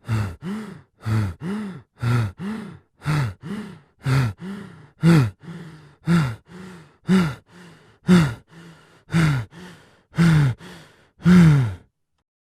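A person breathing heavily in quick pairs of breaths with the voice sounding in each one, rising then falling in pitch, about one pair a second. The breathing stops shortly before the end.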